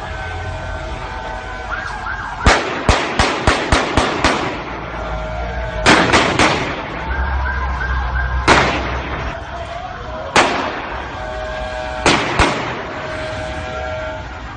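Emergency-vehicle sirens wailing steadily under a string of loud, sharp bangs like gunfire: a quick run of about seven a couple of seconds in, three more a few seconds later, then two single bangs and a final pair near the end.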